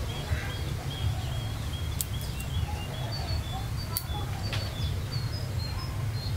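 Bonsai scissors snipping thin twigs, sharp clicks about two seconds in and again around four seconds in. A bird chirps repeatedly in the background over a steady low rumble.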